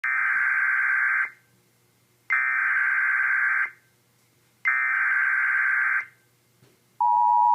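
Emergency Alert System SAME header: three bursts of screeching digital data tones, each about a second and a half long with a second's gap between them, encoding a flash flood warning. Near the end the steady two-tone EAS attention signal begins.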